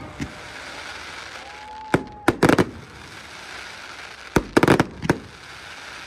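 Fireworks going off: a sharp bang just after the start, then two quick clusters of several sharp cracks about two seconds in and about four and a half seconds in.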